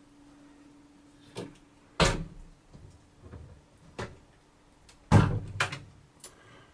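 Wooden cabin doors and their latches being handled: a handful of sharp knocks and clunks, the loudest about two seconds in and again about five seconds in, over a faint steady hum.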